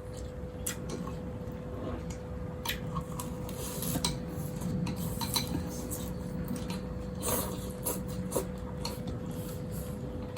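Spoons and chopsticks clinking against bowls during a meal, a scattered run of light irregular clicks, over a steady hum.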